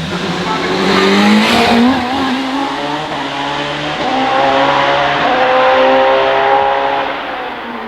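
Hillclimb racing car accelerating hard up the course, its engine note climbing, dropping at a gear change about two seconds in, climbing again through the middle, then falling and fading near the end.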